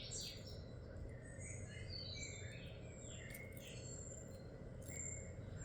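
Faint bird chirps, short and scattered, over a low steady hum, with a couple of light clicks.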